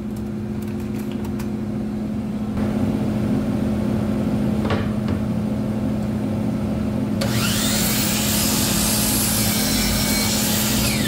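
A shop dust collector runs steadily, and its airflow changes a few seconds in as a blast gate is opened. About seven seconds in, a DeWalt miter saw is switched on and runs with a loud whir for about four seconds, then winds down near the end.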